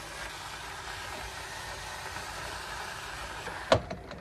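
Kitchen tap running steadily, water splashing as raw chicken is rinsed under it; it stops abruptly with a sharp click near the end.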